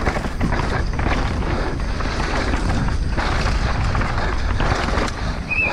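Downhill mountain bike charging down a loose dirt trail: tyres crunching and skidding over dirt and roots, the bike rattling and knocking over bumps, under heavy wind rumble on the microphone. A brief high tone sounds near the end.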